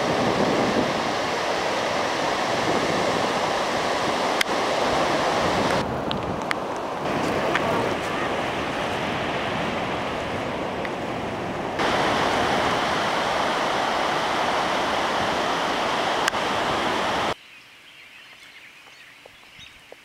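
Ocean surf washing on a beach with wind on the microphone, a steady loud rush of noise that changes abruptly at several cuts. About seventeen seconds in it drops off sharply to a much quieter outdoor background.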